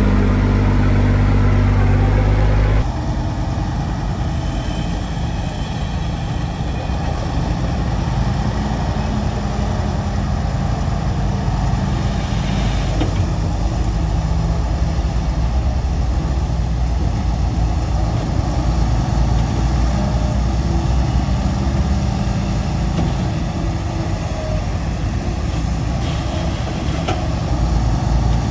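Heavy diesel earthmoving machinery running: a steady engine tone that changes abruptly about three seconds in to a rougher, rumbling engine sound under load.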